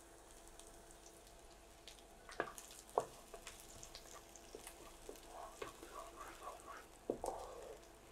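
Chopped garlic frying in hot oil in a pan: a faint, even sizzle with scattered crackles as a wooden spatula stirs it, and a few sharper clicks about two and a half, three and seven seconds in.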